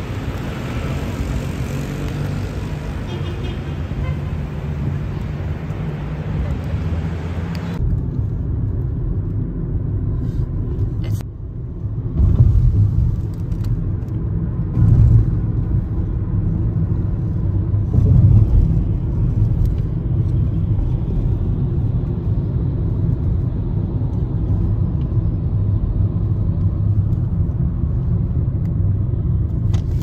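Steady low rumble of a car driving on city streets, heard from inside the car, with a few louder swells. The first few seconds, before an abrupt change, are a brighter outdoor hiss.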